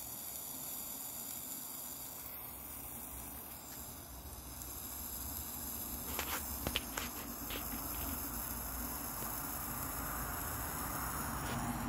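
A TNT Morning Glory sparkler burning with a steady hiss, with a few sharp clicks about six to seven seconds in.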